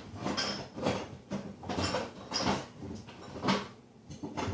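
Kitchen clatter: a series of sharp knocks and scrapes, like a utensil or dishes handled against cookware, coming about every half second.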